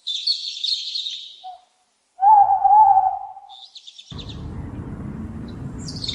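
Birds chirping and calling. The loudest is a wavering call lasting about a second, roughly two seconds in, and a quick trill follows. From about four seconds a steady outdoor background hiss comes in under further chirps.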